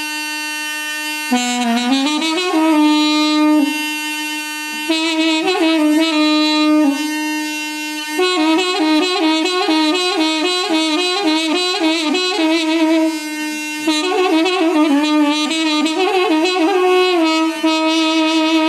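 Solo wind-instrument music: one reedy melody line, heavily ornamented with fast trills and slides, over a steady held low note.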